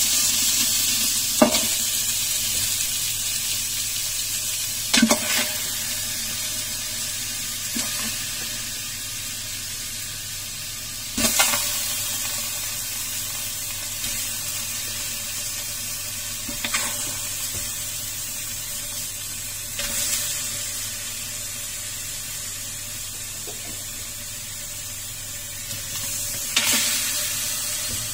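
Washed raw chicken pieces dropped a handful at a time into a steel cooking pot, a knock every few seconds, over a steady hiss.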